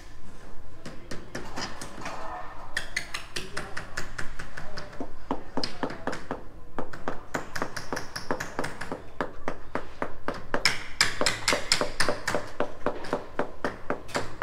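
Rapid tapping, roughly four sharp knocks a second in runs with short pauses: rubber mallets knocking a uPVC window frame into its concrete opening to seat it for a dry fit.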